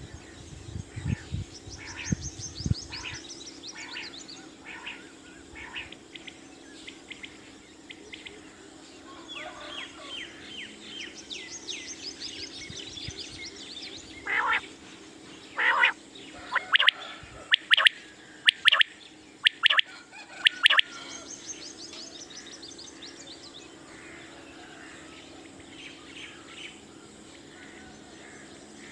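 Caged common quail calling: a run of loud, sharp, clipped call notes in the middle, with fainter high descending twittering trills heard three times. Low knocks in the first few seconds.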